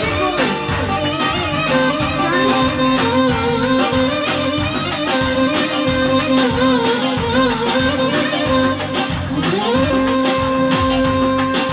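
Live Greek folk band music: a clarinet plays a wavering, ornamented melody over keyboard and drum backing. A little after nine seconds it slides up into a long held note.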